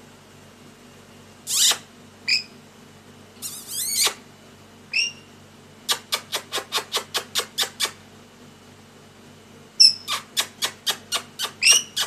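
Rainbow lorikeet calling: a few sharp screeches and short chirps, then two runs of rapid clipped chattering notes, about six a second, one in the middle and one near the end.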